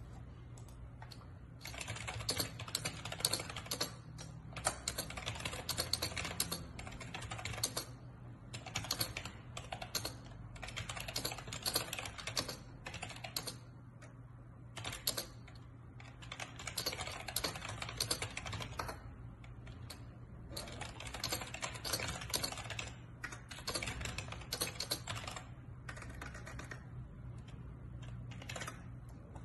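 Typing on a computer keyboard: quick runs of key clicks lasting a few seconds each, with short pauses between them, over a steady low hum.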